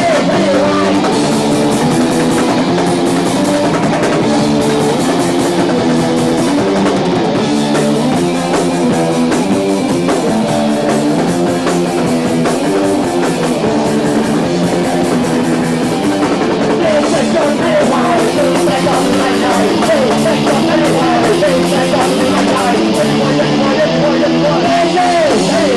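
Live rock band playing, steady and loud.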